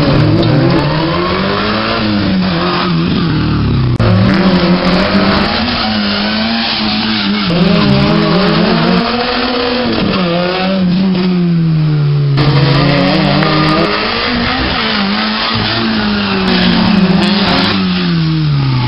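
Hatchback rally car engine revving hard, its pitch climbing and dropping again and again as the car accelerates through the gears.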